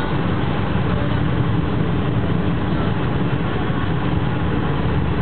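Steady engine drone and tyre noise from inside a vehicle's cab cruising on a wet road, unbroken throughout.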